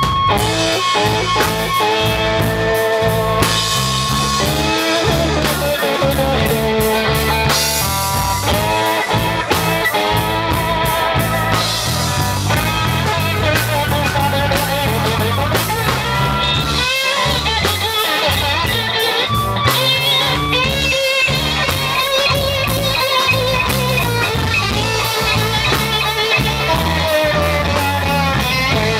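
Live blues-rock band playing an instrumental passage: a Stratocaster-style electric guitar solos with bent, wavering notes over electric bass and a drum kit.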